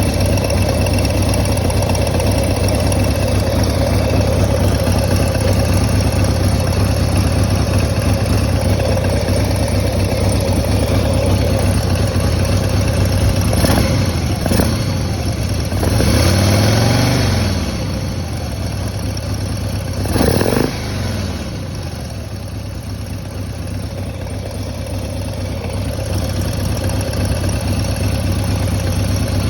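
Harley-Davidson Twin Cam 110 air-cooled V-twin idling, with a few short throttle blips and one longer rev that rises and falls about midway. The engine runs poorly, and the owner is unsure whether its lifter noise is normal.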